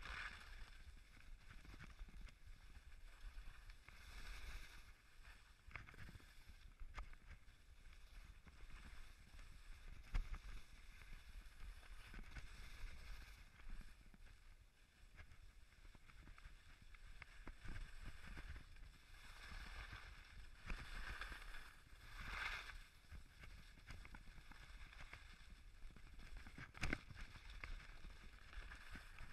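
Faint swishing of skis sliding over snow, with louder swooshes at the turns and an occasional sharp click or knock.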